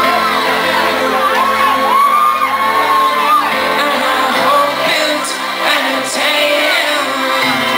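Rock band playing live with a male lead singer singing, recorded from the audience in a large hall.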